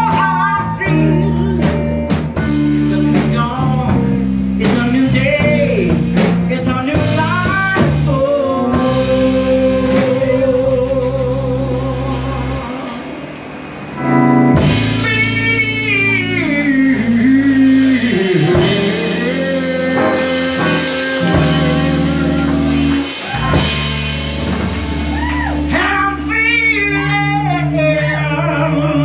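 Live blues-rock band playing, recorded from the audience: electric guitars, bass and drum kit under a lead vocal with wavering held notes. The music dips briefly about halfway through, then comes back in full.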